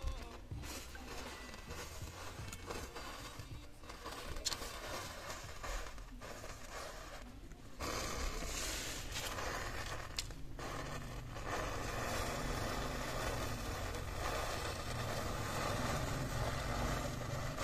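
Rows of matches catching fire one after another in a chain reaction, a continuous hissing crackle of burning match heads that gets louder about eight seconds in as the flame front grows.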